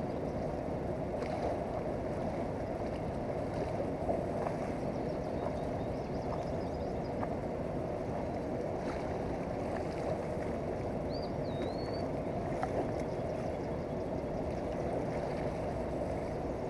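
Steady rushing of a fast-flowing river running past the bank.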